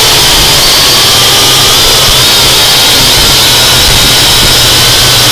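UDI U842 Falcon quadcopter's motors and propellers whining loudly into its onboard camera's microphone over a heavy rush of prop wash. Several high whines waver in pitch as the throttle shifts.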